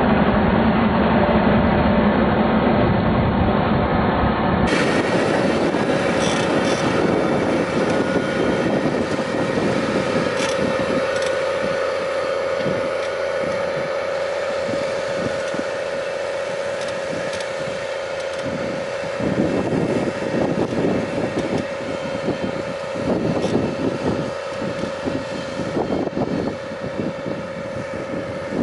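New Holland T7070 tractor's six-cylinder diesel running steadily under load while pulling a tillage cultivator through the soil, with a constant high whine over the engine. In the second half the sound grows thinner and more uneven as the tractor draws away.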